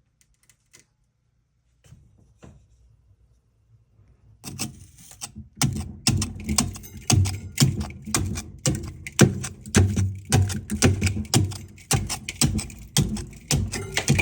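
A flat wooden rice spoon chipping frost and ice off the freezing compartment of a propane fridge: after near silence, quick irregular knocks with dull thuds, a few each second, start about four seconds in.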